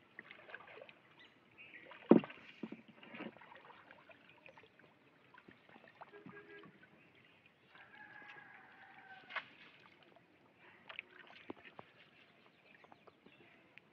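Water sloshing and dripping as a collapsible mesh box trap (China net) is hauled up through weedy shallow floodwater by a man wading beside it, with a single sharp knock about two seconds in.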